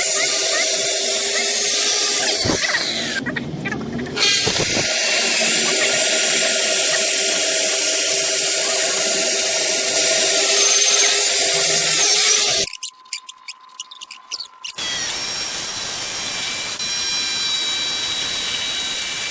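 Electric woodworking power tool running steadily with a whine. About two-thirds of the way through it drops away for about two seconds, then a tool runs again with a different, higher whine.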